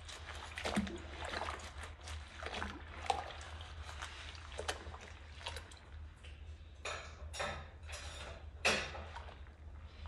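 Soapy dishwater sloshing and splashing in a stainless steel sink as rubber-gloved hands scrub dishes with a sponge, with a run of short scrubbing and splashing strokes. Three louder splashes come in the second half.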